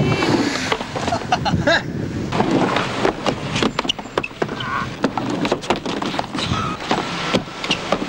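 Skateboard rolling, with a run of sharp knocks and clacks from the board.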